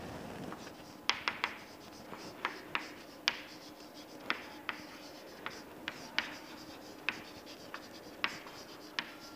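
Chalk writing on a chalkboard: a run of short, irregular taps and light scraping as letters are written, starting about a second in.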